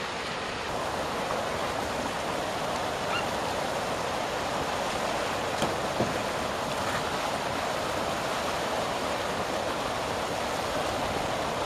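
Water pouring over a river weir, a steady rush of white water.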